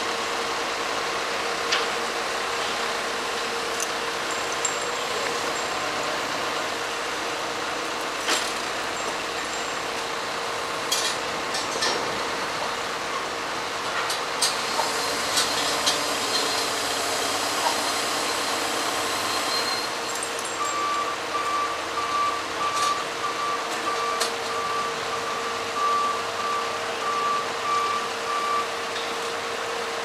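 Diesel truck engine running steadily to power a truck-mounted loader crane, with a steady hum and occasional sharp knocks as the load is handled. About two-thirds of the way in, a warning beeper starts a steady series of short high beeps, about two a second, for some eight seconds.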